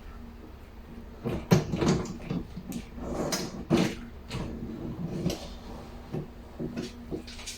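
Dishwasher racks being put back into the machine: a series of rattling knocks and clatters as they are handled and slid into place, starting about a second in and thinning out near the end.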